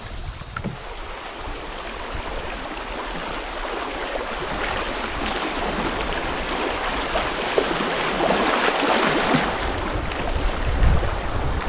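River water rushing and splashing over a shallow riffle around a canoe, growing steadily louder as the boat runs down into the fast water. A low rumble rises near the end.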